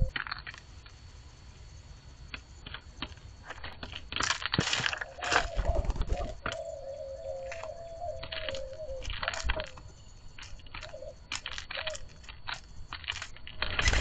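Mourning doves pecking seed in a cardboard box feeder: a run of irregular sharp clicks and crunches. A low wavering tone runs through the middle, and near the end there is a burst of wing-flapping as a blue jay flies in.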